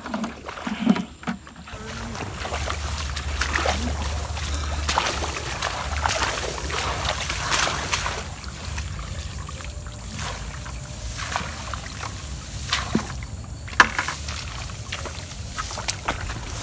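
Rustling and crackling of tall grass stems as a person pushes through them on foot, with scattered snaps and steps. Wind buffets the microphone with a low rumble, strongest in the first few seconds.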